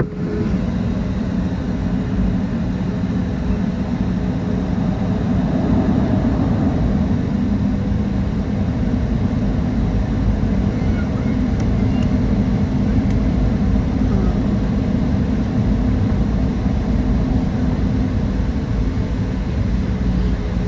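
Cabin noise inside a Southwest Boeing 737 taxiing: the jet engines' steady low drone over a low rumble, holding an even level with no spool-up.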